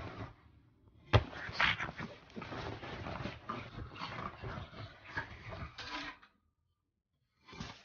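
A pug making dog noises while scrambling about on a bed, with a sharp knock about a second in. The sounds cut off about six seconds in, with one short burst near the end.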